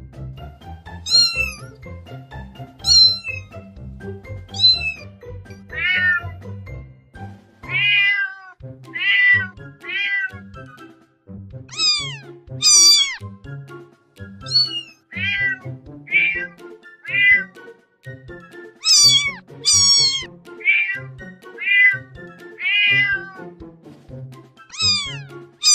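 Domestic cat meowing over and over, about twenty meows roughly a second apart. Some are high and thin, others lower, and each bends down in pitch at its end. A steady background music track plays underneath.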